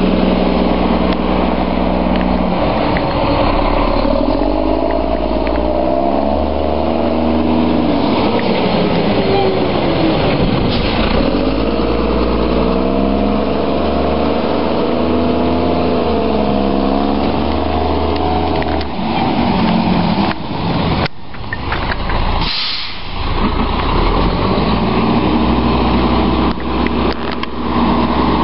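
Diesel engine of a Volvo WXLL front-load garbage truck running and revving up and down as the truck drives between stops. A short air-brake hiss comes about three-quarters of the way through.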